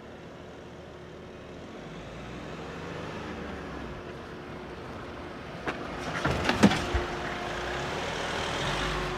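Mahindra Bolero's diesel engine pulling the SUV over a rough dirt track, growing louder as it comes closer. About six seconds in, a quick run of knocks and a heavy thump as the vehicle jumps a bump and lands on its suspension.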